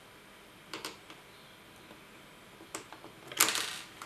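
A few small clicks, then a brief, loud rattling clatter about three and a half seconds in: laptop parts and tools being handled during reassembly.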